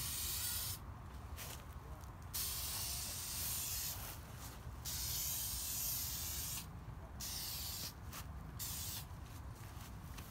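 Aerosol spray can of plastic adhesion promoter hissing in a series of sprays, a second or two each with short pauses between and shorter spurts near the end, misting a first coat onto plastic wing parts before painting.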